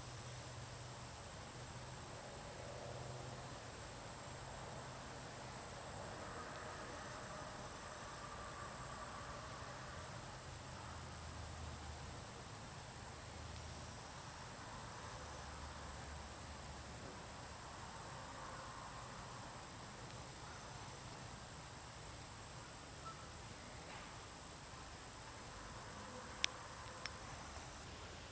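An insect singing one steady, high-pitched note with a few short breaks, and two sharp clicks near the end.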